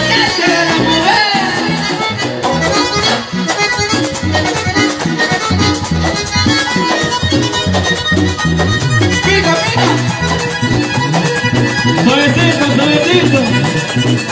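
Live Colombian band music led by a button accordion over congas, timbales and bass, played loudly through a stage PA with a steady, danceable beat.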